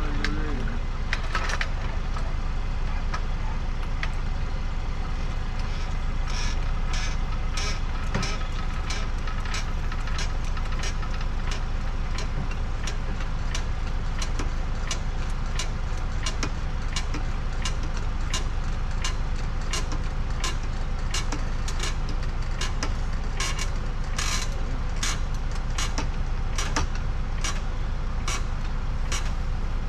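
Tow truck's engine running steadily with a low rumble. Frequent sharp clicks and rattles begin about six seconds in and come thicker toward the end.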